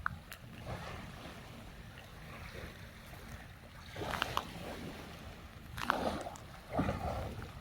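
Sea waves washing onto the shore, with louder surges about four, six and seven seconds in, over a steady low rumble.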